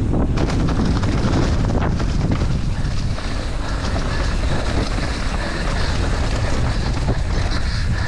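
Wind buffeting the microphone of a mountain bike rider's camera, over the rumble of knobby tyres rolling fast on a dirt trail. Quick rattles and clicks from the bike come thickest in the first two seconds.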